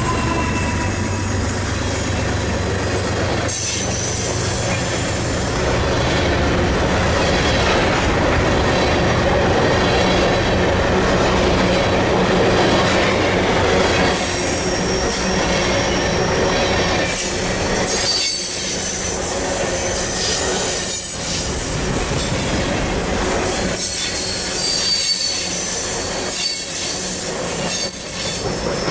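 Loaded CN grain train of covered hopper cars rolling past, steel wheels rumbling and clacking on the rails, with wheel squeal on curved track that comes and goes as high thin tones.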